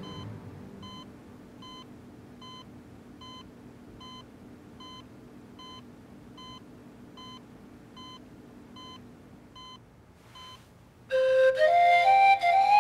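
Bedside patient monitor beeping its steady heartbeat tone, a short beep a little faster than once a second. About eleven seconds in, louder background music starts with a melody climbing in pitch.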